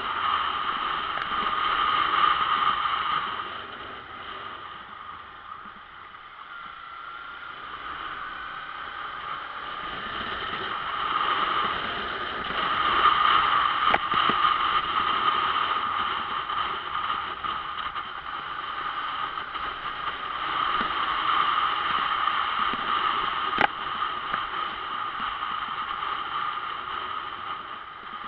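Sport motorcycle on the move: wind rushing over the bike-mounted microphone with the engine running underneath, easing off about four seconds in and building again from about ten seconds. Two short sharp ticks, about halfway and about two thirds of the way through.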